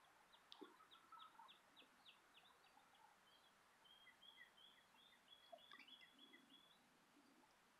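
Faint songbird calls: a series of about eight short, high, down-slurred whistled notes at about three a second, followed by a faster, high twittering run.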